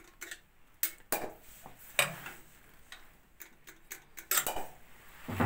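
Scattered sharp metallic clicks and taps from hand-oiling the rocker arms of an old, stopped tug boat diesel engine, the loudest about two seconds in and a quick cluster near the end.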